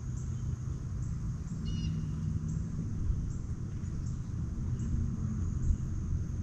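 Low rumble of wind buffeting the microphone on open water, with a faint steady high tone over it and a brief bird chirp about two seconds in.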